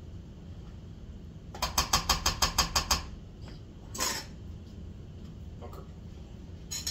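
A spoon stirring chicken salad in a plastic container, clicking against its sides in a quick, even run of about ten strokes at some seven a second, starting about one and a half seconds in. There is one more short noise about four seconds in.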